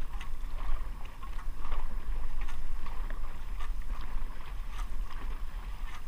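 Dragon boat paddles catching and pulling through the water in unison, rhythmic splashes and rushing water at each stroke, with wind buffeting the microphone.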